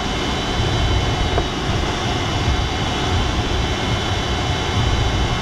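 Steady rush of airflow over the canopy and fuselage of an Alisport Silent-in motorglider soaring with its engine retracted, heard inside the closed cockpit. Faint steady high tones sit above the rush.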